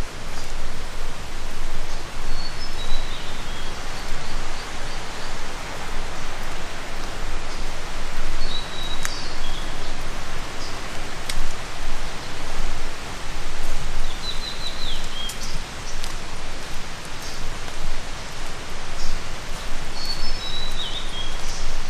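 A steady hiss of water runs throughout. Over it, a small songbird repeats a short phrase of high, falling notes about four times.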